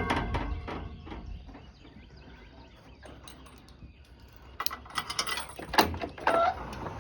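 Feed buckets clattering during feeding: a loud knock at the start, faint scattered clicks, then a run of rattling and knocking near the end.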